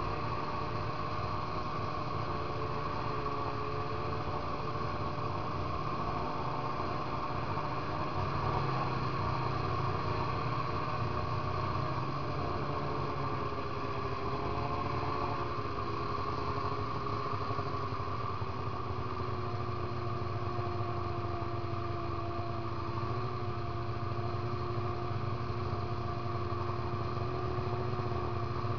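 Polaris 800 RMK snowmobile's two-stroke 800 twin with an SLP aftermarket pipe running steadily under way across snow. Its pitch wavers a little and settles slightly lower about halfway through, then holds steady.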